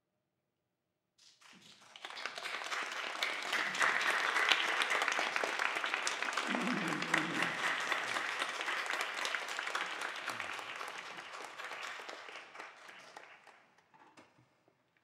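Audience applauding, breaking out about a second in after a held silence and dying away near the end.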